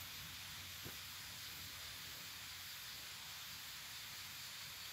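Steady hiss of heavy rain falling, with no thunder.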